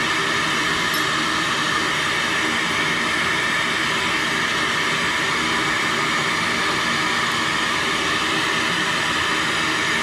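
Shop vacuum used for carbide dust extraction, running with a steady, even rushing noise.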